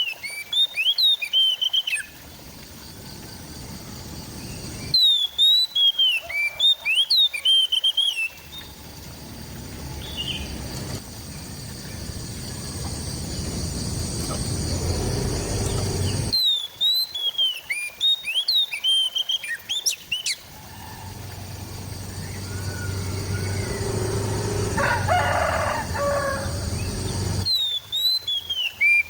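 Oriental magpie-robin (kacer) singing in four loud bursts of quick, varied chirps and whistles. Between the bursts a steady noisy background swells and then cuts off abruptly, and a lower drawn-out call sounds about two-thirds of the way through.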